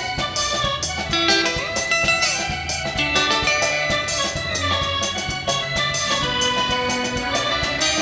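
Live twarab band music, played at a Comorian toirab, with held notes over a steady drum beat.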